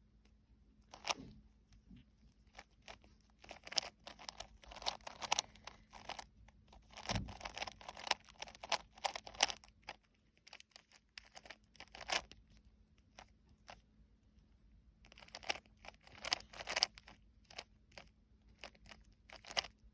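A 3x3 Rubik's cube being turned by hand: runs of quick plastic clicks and scrapes as the layers are twisted, in several bursts of a few seconds with short pauses between. The solver is pairing up pieces to fill the first two layers.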